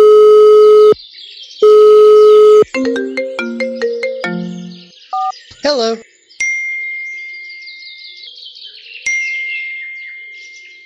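Phone ringing sound effect: two loud steady rings about a second long each, then a short falling ringtone melody, then a voice saying "hello". After that, birds chirp softly under a steady high beep, heard twice.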